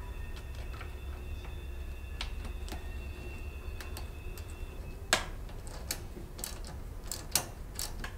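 Light clicks and small metallic taps as hands fit a foam air filter and its clamp onto a moped's carburetor, with a few sharper clicks in the second half.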